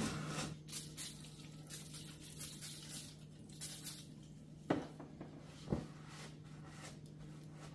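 Faint rubbing and wiping of a rag over an oil-caked valve cover being degreased, with two sharp knocks about a second apart a little past halfway, over a steady low hum.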